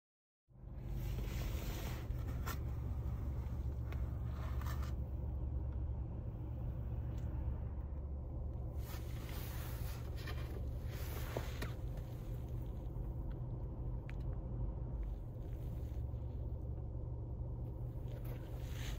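Steady low rumble of a car heard from inside its cabin, with irregular rustling and scraping as sneakers and a cardboard shoebox are handled.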